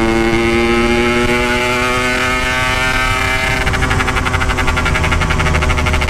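Yamaha RX-King 135cc two-stroke single running at a steady, slightly falling note through its standard-style Packing Power exhaust, with a rapid rough pulsing coming in a little past halfway. The rider says the spark plug is failing and can no longer take full throttle.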